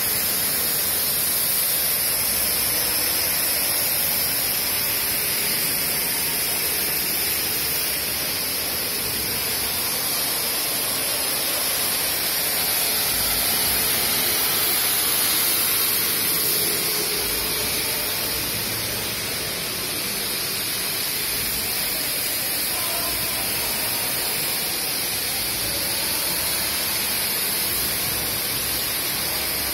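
Two oxyfuel cutting torches on a CNC gantry beam-cutting machine hissing steadily as their oxygen jets cut through a steel I-beam.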